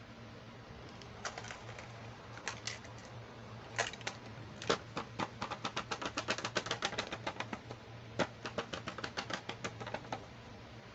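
Fingers tapping on a boxed doll's packaging: a run of quick, sharp taps that starts sparse, speeds up to about seven a second in the middle, pauses briefly near the end, then runs on again.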